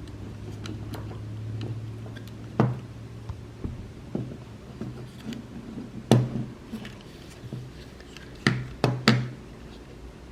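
Pentax 645 120 film insert being wound by hand: irregular clicks and knocks from the spool turning and the insert being handled, four sharper clicks standing out among faint ticks.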